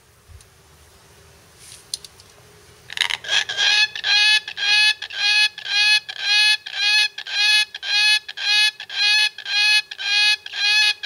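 A black cockatoo repeating a rapid run of short, even, buzzy calls, about two a second, that sound like a camera's motorised film rewind; the run starts about three seconds in.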